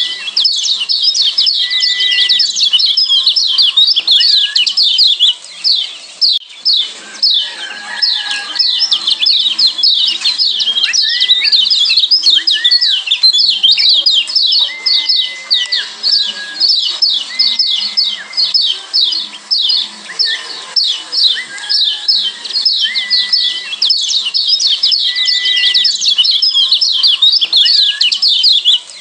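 Kecial kuning Lombok (Lombok yellow white-eye, a Zosterops) giving its rapid 'ciak' chipping call: a dense, unbroken run of quick high chips, several a second. Short level whistled notes, lower in pitch, come in every second or two.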